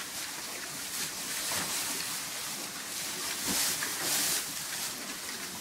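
Tamworth piglets rooting and rustling in straw close by, with a few low grunts.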